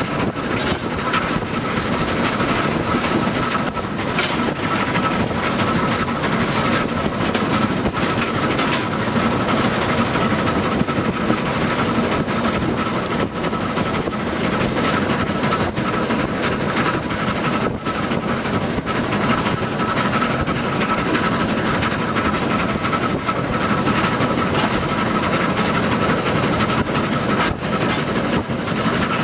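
A train running steadily along the track, heard from the locomotive cab: a constant rumble of wheels on rail with a steady high-pitched whine and scattered clicks of wheels crossing rail joints.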